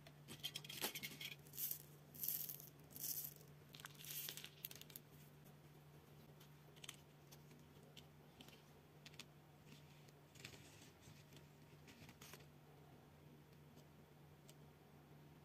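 A handful of small hard white candy tablets rattling and clattering as they are shaken and poured out, in several short bursts over the first few seconds. After that it is near quiet, with a few faint handling clicks.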